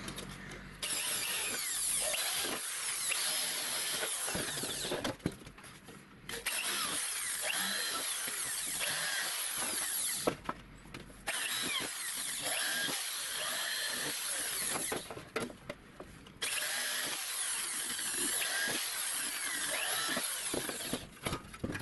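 Handheld electric drill boring holes through a thin galvanized sheet-steel cover, running in four spells of about four seconds each with short pauses between.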